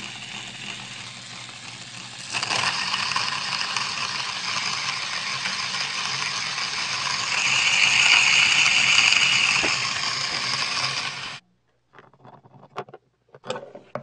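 Induction motor driving a hand-crank ceramic burr coffee grinder, running with a steady hum and the gritty crunch of coffee beans being ground. It gets louder about two seconds in, is loudest around eight seconds in, and stops suddenly about eleven seconds in, followed by a few light clicks.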